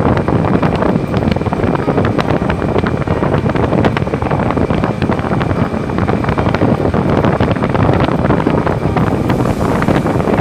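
Loud, steady wind buffeting the microphone on the move, with a vehicle running underneath.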